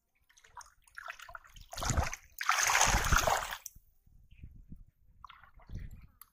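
Shallow river water splashing and sloshing as a hand gropes for fish inside a bamboo polo trap, in a few bursts, the longest and loudest lasting just over a second about two and a half seconds in.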